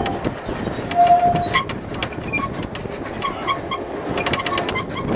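Narrow-gauge passenger carriages rolling past close by, their wheels clicking and rattling over the rail joints, with a brief steady tone about a second in.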